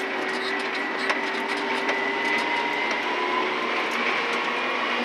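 Cab interior of a Komatsu 400 articulated dump truck under way: steady engine and drivetrain noise with a whine that slowly rises in pitch, over constant light rattling.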